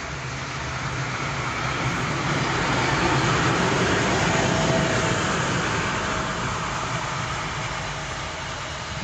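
ST44 (Soviet-built M62) diesel locomotive running light past at close range, its two-stroke V12 diesel engine running with a low steady hum. The sound swells to its loudest about four seconds in as the locomotive goes by, then fades as it moves away.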